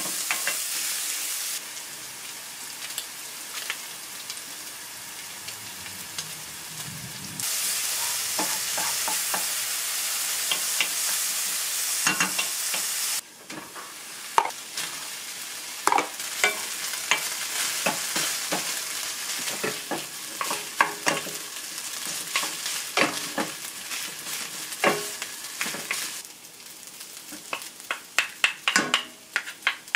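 Food sizzling in a hot frying pan while a utensil stirs and scrapes it, with frequent short clicks and taps against the pan. The sizzle's loudness jumps abruptly a few times.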